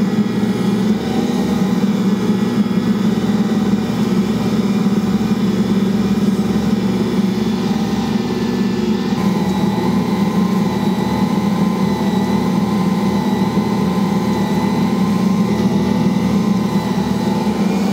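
Ankarsrum stand mixer running steadily, its motor turning the stainless steel bowl as the roller and scraper knead bread dough: a steady, even motor hum.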